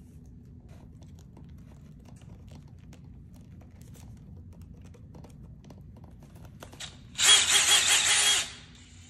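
Faint small clicks of a shoe's buckle strap being fastened, then a DeWalt cordless drill spun briefly by its trigger for just over a second, loud and high-pitched, about seven seconds in.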